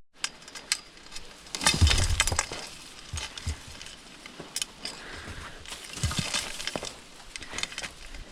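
Metal clinking and rattling of a wire live-catch trap being handled and opened, with a louder burst of clattering about two seconds in and scattered clicks after.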